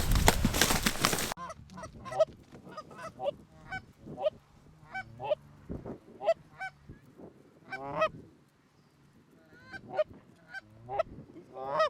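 Canada goose honks and clucks: many short, separate calls, some in quick runs, repeating irregularly. A loud rush of noise covers the first second or so.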